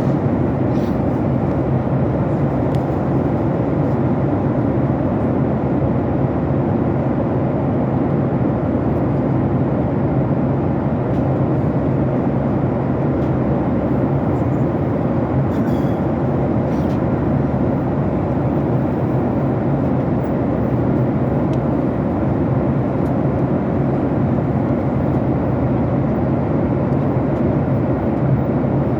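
Steady cabin noise of an airliner in flight: engine and airflow noise heard from inside the passenger cabin, even and unbroken, with a low hum underneath.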